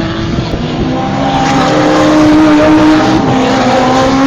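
GT race car engines at speed on the circuit, their note rising slowly and then dropping about three seconds in, heard through a phone's microphone.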